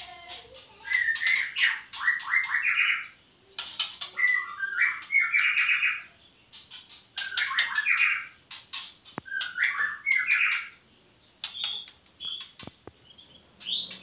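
White-rumped shama (murai batu) singing vigorously in about five loud phrases of a second or two each. The phrases are rapid runs of repeated notes mixed with high chips, with short pauses between them.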